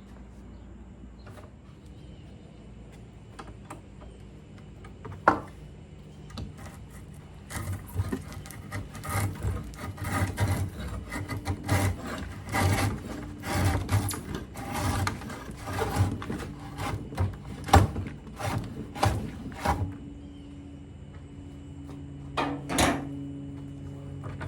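Wooden pieces being handled: a single sharp knock, then a long run of irregular knocks and scraping, one or two a second, which thins out near the end.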